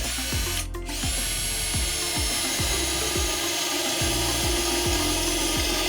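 Power drill running an ordinary 9.5 mm twist bit into steel: it stops briefly under a second in, then runs steadily with a high whine. Background music with a steady beat plays under it.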